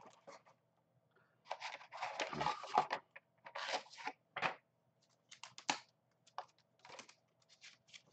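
Paper leaflets and a card sleeve from the microphone's packaging being handled and shuffled, giving irregular bursts of rustling and crinkling.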